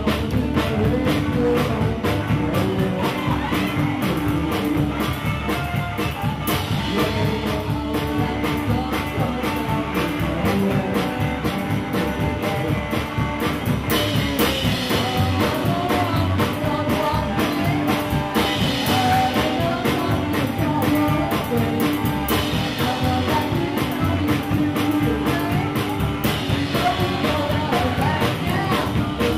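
Live rock-and-roll band playing: a woman singing over a drum kit and electric guitar, with a steady driving beat.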